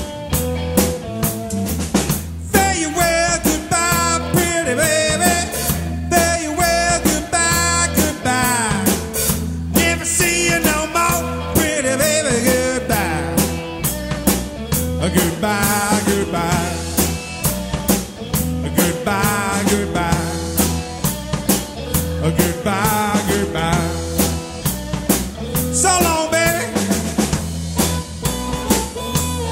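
Live blues-rock band playing: an amplified harmonica solos in phrases of bent, wavering notes over a steady drum beat, bass and electric guitar.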